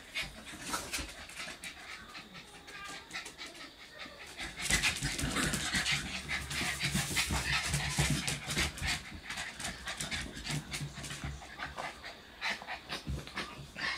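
Puppies playing and scuffling, with panting and small whimpers. The scuffle grows louder and busier from about five seconds in, then eases near the end.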